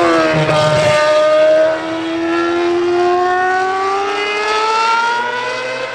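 Ferrari Formula 1 car's V8 engine passing at speed. Its high, clean note falls to a low point about half a second in, then climbs steadily as the car pulls away, the sound dropping sharply in level about two seconds in and fading.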